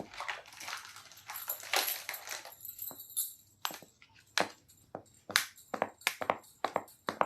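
Plastic packaging crinkling for the first couple of seconds, then a run of about ten sharp clicks and taps from small plastic toy pieces, coming faster toward the end.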